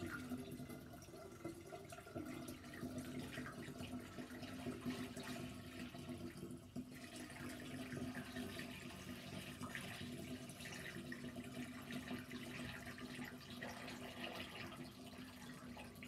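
Cooled sugar solution pouring from a steel pot through a funnel into a glass demijohn, a steady trickling stream filling the jar.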